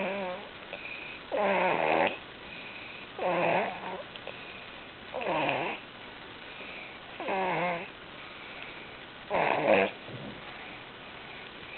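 A sleeper snoring while sick, one snore about every two seconds, six in all; the last is the loudest.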